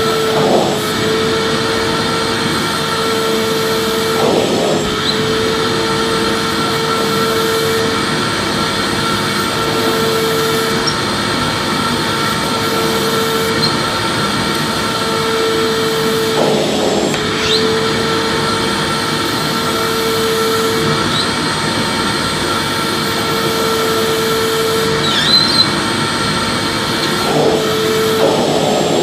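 Vacuum cleaner running continuously, a steady loud whooshing hiss with a motor whine that fades out and comes back every few seconds. There are brief shifts in the airflow sound a few times.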